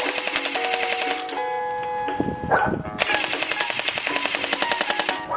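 Electronic music with notes that step in pitch over a fast, even ticking beat. The beat drops out for about a second and a half near the middle, then returns.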